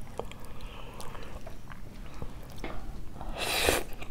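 Eating sounds at a table: scattered small clicks of forks against plates, then about three and a half seconds in a short slurp as a forkful of spaghetti is sucked into the mouth.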